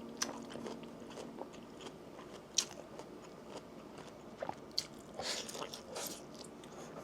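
A person biting and chewing crunchy food: scattered, irregular crunches and small clicks, a sharper one about two and a half seconds in and a cluster of crunches near the end.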